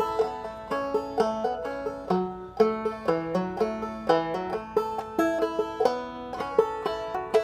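Solo five-string banjo played clawhammer style at a slow tempo, a steady run of plucked melody notes with the ringing drone string between them.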